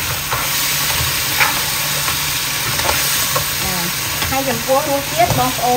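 Crab pieces sizzling in a nonstick wok as a spatula stirs and tosses them, the spatula knocking and scraping against the pan now and then.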